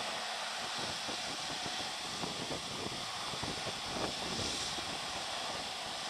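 Two Fendt Vario tractors under heavy load pulling a Panter deep plough: a steady engine drone with an irregular crackle running through it as soil is torn up and turned.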